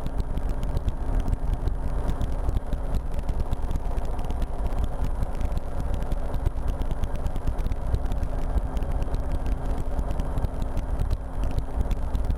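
RotorWay experimental helicopter's engine and rotor running steadily in cruise flight, heard from the cockpit, with a constant low pulsing and a steady hum.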